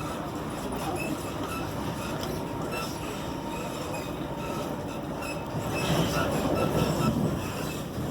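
Class 90 locomotive-hauled passenger train running on the rails: a steady rumble with short, repeated high squeals from the wheels. The rumble swells louder about six seconds in for a second or so.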